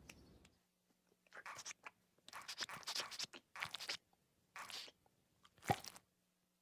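Cartoon baby sucking and slurping at a chest in several wet bursts, with a sharper wet smack near the end as he lets go.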